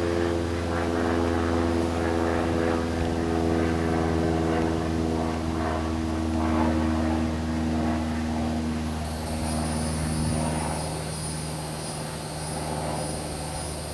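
Steady drone of a distant engine with several held pitched tones, which fade away over the second half. A high, steady hiss joins about nine seconds in.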